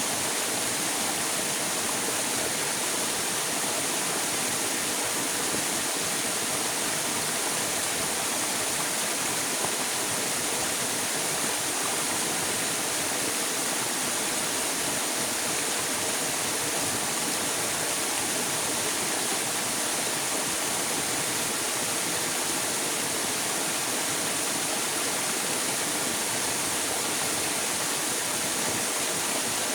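River water flowing steadily: an even, unbroken rushing hiss, strongest in the high range.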